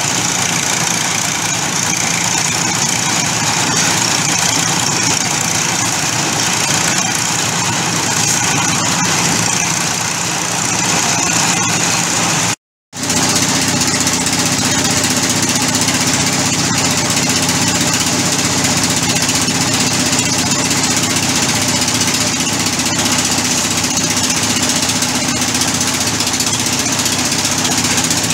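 Engine-driven drum concrete mixer running steadily, turning a batch of concrete for the pile pour. The engine runs with a knocking beat and breaks off for a moment about halfway.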